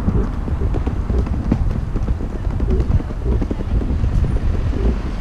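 Rolling suitcase wheels clattering over cobblestone paving in a dense run of irregular clicks, with wind rumbling on the microphone.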